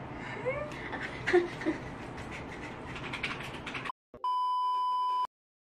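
Room noise with a few short sounds over it, then, after a brief gap, a steady electronic beep tone lasting about a second that cuts off sharply.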